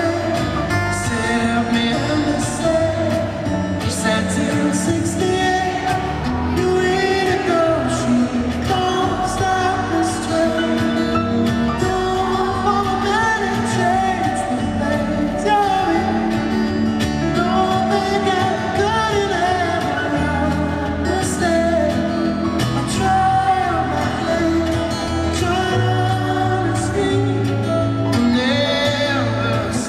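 A man singing a slow song live while fingerpicking an acoustic guitar.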